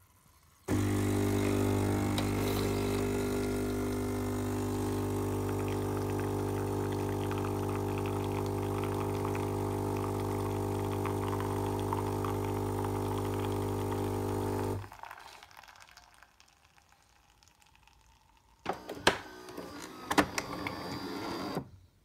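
Philips HD8844 super-automatic espresso machine's vibratory pump buzzing steadily for about fourteen seconds while it forces water through the coffee to pull an espresso shot, then stopping abruptly. A few sharp clicks and knocks follow near the end.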